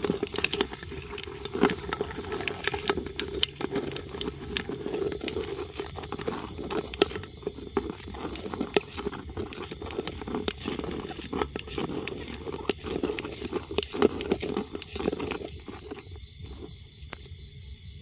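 Close rustling and crackling of banana plant material being handled and pulled apart, with many small clicks and snaps, dying down near the end.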